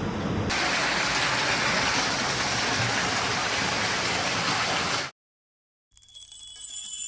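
Steady rushing noise, like rain or running water, that cuts off abruptly about five seconds in; after a brief silence, music with jingling bells starts near the end.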